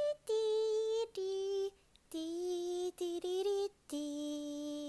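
A female voice singing a short outro jingle in separate held notes, each at a steady pitch, stepping downward overall.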